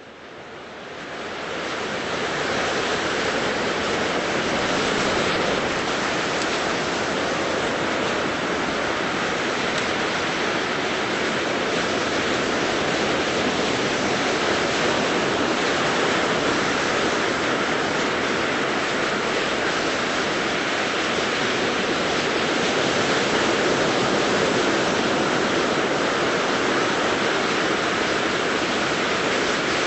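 Steady ocean surf washing on a beach, fading in over the first couple of seconds.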